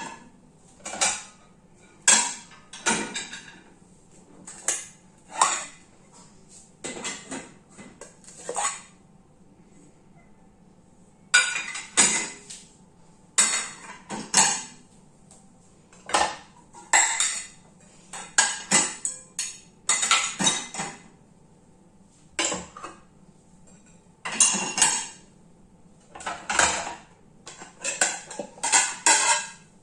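Dishes, pots and pans being loaded into a dishwasher's racks, clattering and clinking in many short separate bursts, with a quiet pause about a third of the way in.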